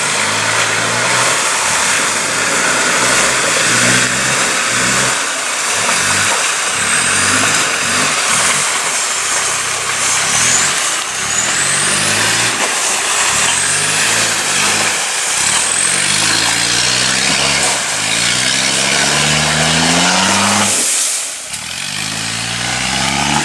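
A lifted Land Rover Discovery's engine revving up and down again and again under load as the truck wades through a rocky river, with water splashing and rushing around the wheels. The engine note climbs higher late on, then drops away sharply a couple of seconds before the end.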